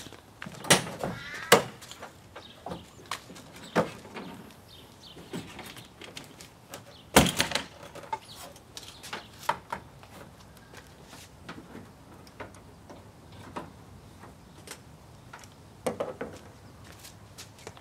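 Irregular knocks and clunks as a Toyota Tacoma pickup's tailgate is opened and a spare tyre and gear are shifted about in the truck bed, the loudest knocks near the start and about seven seconds in.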